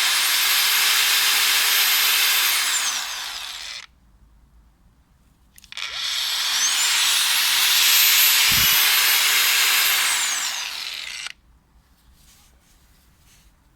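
Festool AGC 18 cordless angle grinder's brushless motor running at a steady high whine. It winds down about four seconds in, then starts again about six seconds in with a soft-start rising whine, runs for about five seconds and winds down quickly under its motor brake.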